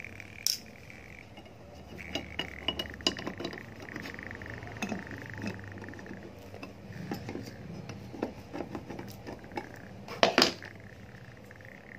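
Pliers and small metal parts clinking and tapping against an electric iron's metal soleplate. There is a scatter of light clicks, and a louder double clack about ten seconds in.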